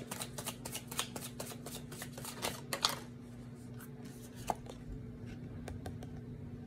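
Tarot deck shuffled by hand: a quick run of papery card clicks for about three seconds, then only a few scattered card taps.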